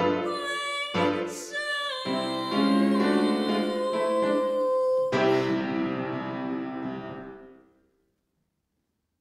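A girl's solo voice sings the last phrase of a show tune over piano accompaniment, holding the final note for about three seconds. The piano then strikes a closing chord about five seconds in, which rings and dies away.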